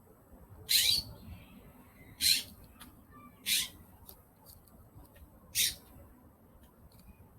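Birds calling: four loud, short, harsh squawks spaced one to two seconds apart, with faint short chirps between them.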